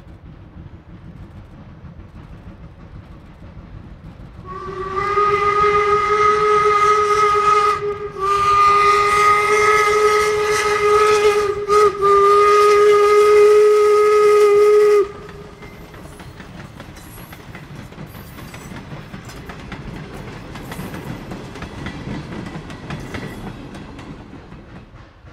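Steam whistle of a replica Civil War-era 4-4-0 steam locomotive sounding three blasts on one steady pitch, the first starting about four and a half seconds in and the last cutting off about fifteen seconds in, with only brief breaks between them. Under and after the whistle the locomotive and its passenger coaches roll past on the rails.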